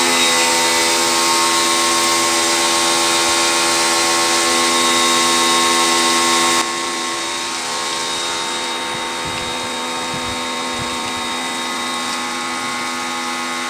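Black & Decker PW1470TD electric pressure washer running: a steady whine from its motor and pump under the hiss of the water jet. The hiss gets quieter about six and a half seconds in.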